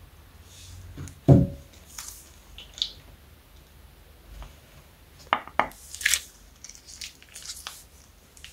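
Scissors snip the tip of a plastic piping bag, with a loud thump about a second in. Then the bag crinkles and squelches as its blue liquid is squeezed out into a bowl, with a few clicks and short hissing squirts.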